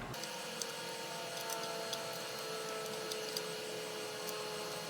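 Faint steady whine from bench electronics, with a few light clicks of small jumpers being fitted onto an Amiga A3640 accelerator board's header pins.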